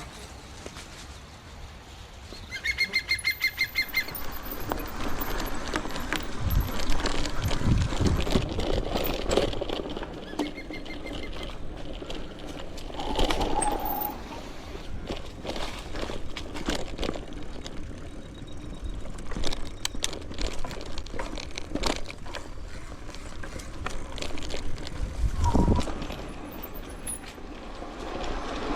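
Bicycle ridden along a dirt trail: the frame and chain rattling and clicking over the rough ground, with a few low thumps from bumps.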